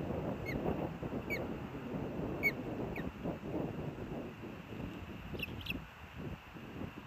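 Ospreys giving short, sharp, downward-falling chirps, about one a second at first, then a higher pair near the end. Under the calls is a low, fluttering rumble of wingbeats on the nest that dies away near the end.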